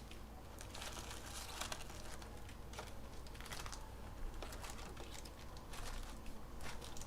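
Crinkling of foil trading-card pack wrappers being torn open and handled, in repeated short rustles with light clicks.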